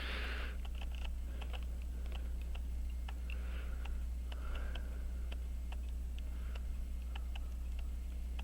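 Faint, light ticking, about three to four small ticks a second, over a steady low electrical hum.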